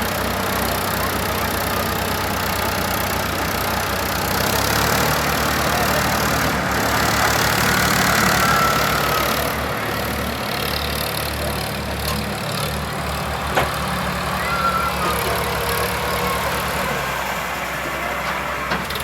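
Heavy diesel engine of a tractor or excavator running. Its firing beat speeds up and slows down several times, and there is one sharp tick partway through.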